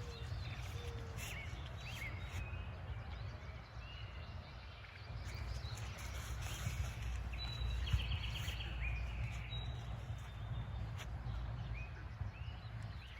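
Small birds chirping and calling over a steady low rumble of wind or handling noise on the microphone, with a quick trilling call about halfway through.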